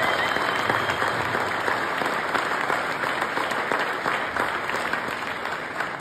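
Large crowd applauding in a factory hall, the clapping dying away near the end.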